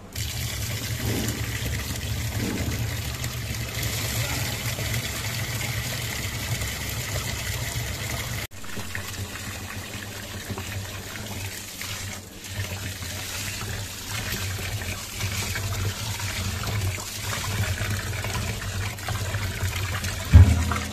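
Running water pouring in a stream into a stainless-steel pot of raw rice, filling it as the rice is rinsed. Steady, with a momentary break about eight seconds in.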